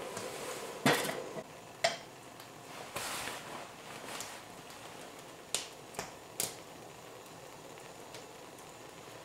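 A metal spoon clinks sharply against a stainless steel stock pot as nearly finished maple syrup is stirred and tested. The loudest clink comes about a second in, another follows a second later, and three quick ones come near the middle, all over a faint steady bubbling of the boiling sap.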